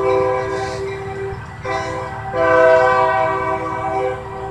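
Union Pacific diesel locomotive sounding its air horn as it approaches: a long blast, a short one, then a longer one, the closing part of a grade-crossing horn signal, over the low rumble of the train.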